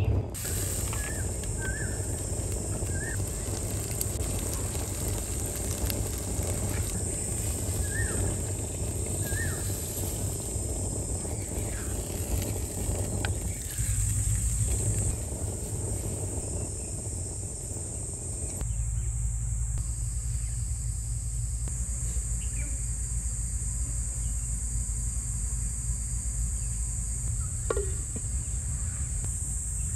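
Outdoor garden ambience: insects buzzing steadily at a high pitch, with a few short bird chirps in the first ten seconds and a low background rumble that shifts abruptly a few times.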